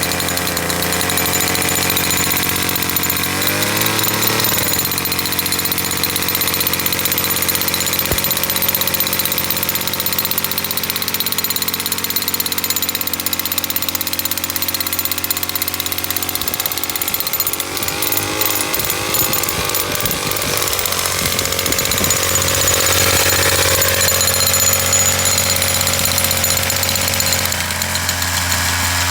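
Gas-powered jackhammer running steadily, its engine driving a modified chisel bit that hammers an 8-foot grounding rod down into hard soil.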